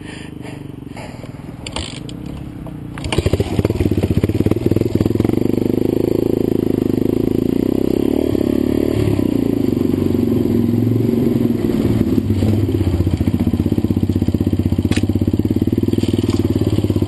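Dual-sport motorcycle engine, quiet for the first few seconds, then opening up about three seconds in and running steadily under load as the bike rides along a dirt trail.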